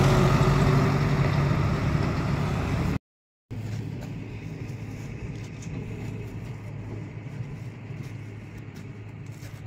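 A dump truck drives past close by, its engine loud at first and fading over about three seconds. It cuts off suddenly, followed by a much quieter steady low hum with a few faint clicks.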